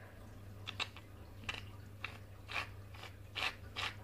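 Slime being mixed, making a series of short scraping, crunchy strokes about two a second that grow louder toward the end.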